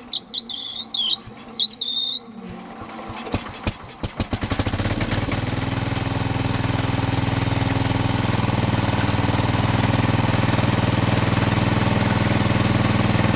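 A few high squeals, then the Sears Suburban 12 garden tractor's engine cranks and catches about four seconds in. It then runs steadily through its newly fitted shusher muffler.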